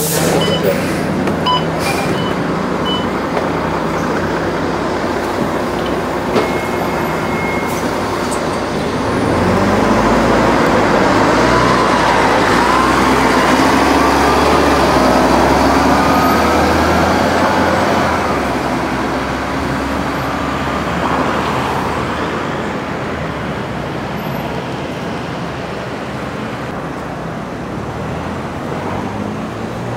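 Double-decker diesel bus pulling away from a stop, its engine rumble swelling with rising pitch as it accelerates, then settling into steady road traffic noise. A few short beeps sound near the start.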